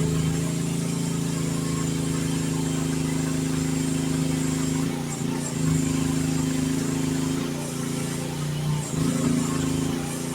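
Youtop YT15 mini excavator's engine running steadily, its note wavering briefly twice, about five and nine seconds in.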